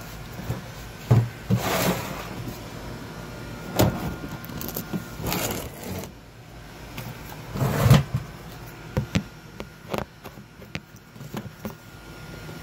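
Scattered knocks and clicks with a few short rustling bursts, the loudest about eight seconds in: handling noise from a phone being carried and moved about.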